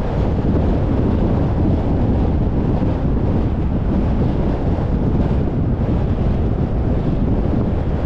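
Steady, loud low rumble of wind buffeting the microphone.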